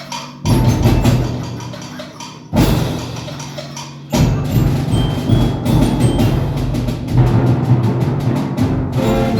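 School jazz band playing a fast galop with percussion: two loud band hits, about half a second and two and a half seconds in, each dying away, then the full band plays on from about four seconds in with a quick rhythm.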